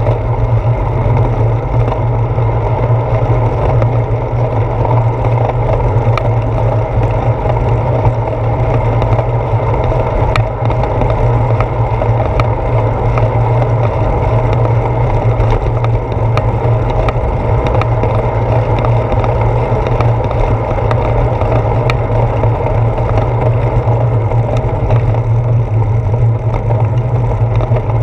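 Steady riding noise of a bicycle on a paved path, heard through a handlebar-mounted camera: a constant low wind-and-road rumble with scattered small clicks and rattles.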